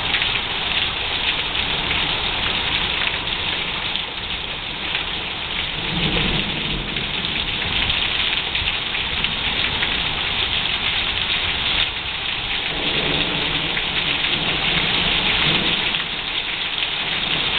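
Heavy rain falling steadily during a thunderstorm, with low thunder rumbling about six seconds in and again about thirteen seconds in.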